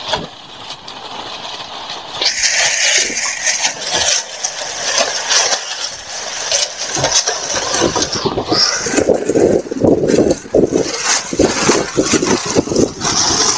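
Wind buffeting the microphone in gusts, rising to a heavier rumble in the second half.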